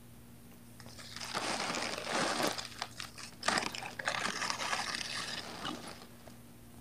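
Ice crunching and crackling as it is broken up: a dense run of crackles that starts about a second in and dies away near the end.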